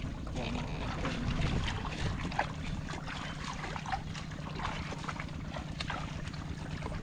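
Low wind rumble on the microphone over a steady low hum, with scattered small splashes and squelches of feet and hands moving through shallow muddy water.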